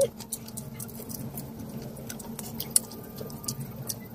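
Close-up chewing and wet mouth clicks of someone eating fried chicken and rice by hand, a scatter of short clicks with one sharper one a little before three seconds in, over a steady low hum.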